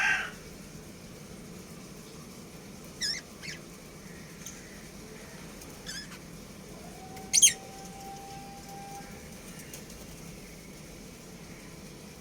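Budgerigars chirping: a few short, sharp high chirps spread out, the loudest about seven seconds in, over a low steady background. A louder call ends right at the start.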